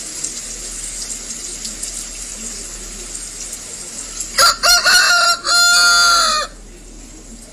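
Fighting cock (gà xanh rooster) crowing once, a few short choppy notes and then one long held note that cuts off sharply, a little past the middle.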